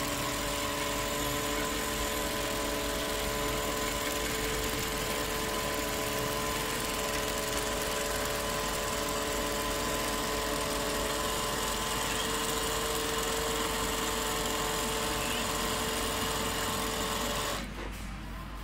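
Juki DDL-8700 industrial lockstitch sewing machine heads on a hair wefting machine, running steadily as they stitch hair into a weft, with a steady motor hum. The sound drops away suddenly near the end.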